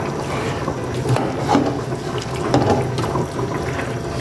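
Grated carrots being stirred with a metal slotted spoon in a steel pot of hot melted sugar and orange juice: a steady wet, watery stirring noise with scattered clicks of the spoon against the pot.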